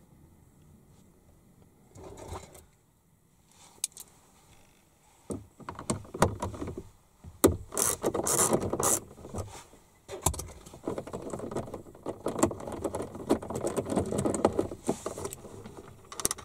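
Irregular clicks, rattles and scraping of tools and parts being handled while working on a car door, starting with a brief scrape and a single click, then growing into busy bursts of clatter.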